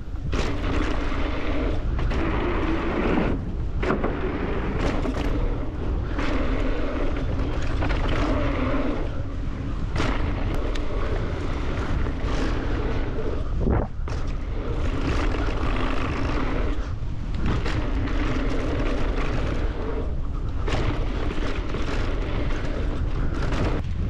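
Wind rushing over the microphone and tyres rumbling on a dirt trail as an Evil Insurgent mountain bike descends at speed. Sharp knocks and short dips in the noise come from bumps and jumps every few seconds.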